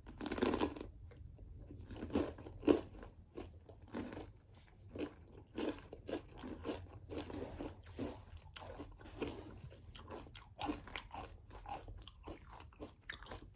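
Crisp crunching and chewing of a pepper stuffed with cream cheese and crushed Takis rolled tortilla chips. Many irregular crunches follow one another, loudest in the first second.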